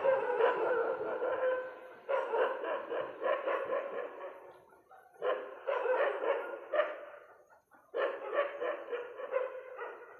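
A dog barking in four bouts of rapid repeated barks, each a second or two long, with short pauses between them.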